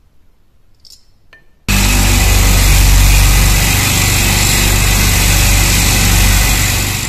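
Electric motor running a buffing wheel on its shaft, with a knife blade held against the spinning wheel to clean it: a low motor hum under a loud, steady rubbing hiss. It starts abruptly about a second and a half in and begins to fade right at the end.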